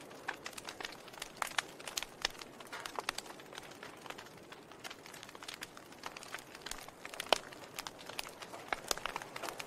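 Wood fire crackling in a fireplace: irregular sharp pops and snaps over a soft hiss of burning, with one louder pop a little past the middle.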